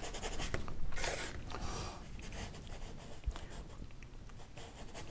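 Paintbrush scumbling acrylic paint onto a stretched canvas: a series of short, scratchy scrubbing strokes.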